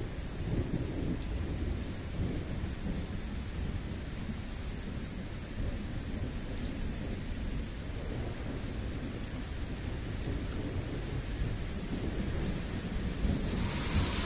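Thunder rumbling low and steadily from a thunderstorm, with light rain and a few faint drop ticks; a hiss swells near the end.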